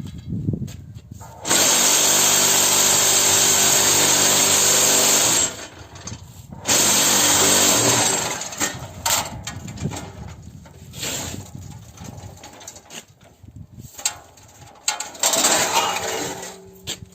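Cinder-block machine's vibration motor running loud and steady for about four seconds, stopping, then starting again briefly and running down. Scattered knocks and clatters follow, with another short burst of running near the end.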